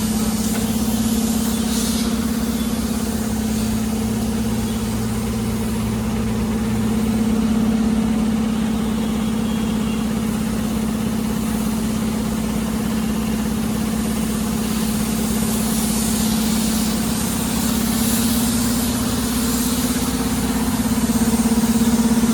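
A machine engine running steadily at constant speed, a continuous hum that swells slightly now and then.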